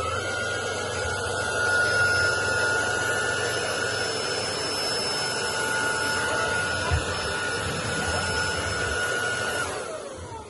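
Bork V800 cordless stick vacuum running with a steady high motor whine over a rush of air, then switched off near the end, its whine winding down.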